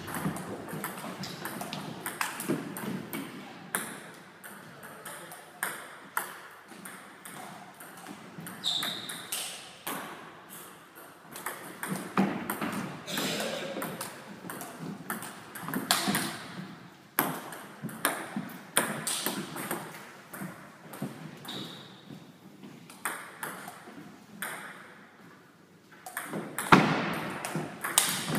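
Table tennis rallies: the celluloid ball clicks sharply off the table and the rubber-faced rackets in irregular runs of hits, with a louder hit near the end.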